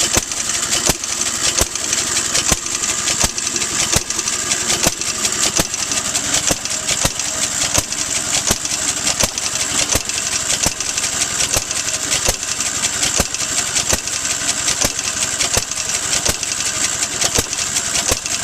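Ideal Model R single-cylinder, air-cooled hit-and-miss engine from the 1920s running on its stand. Sharp clacks come at an even beat, a little over once a second, over a steady high hiss.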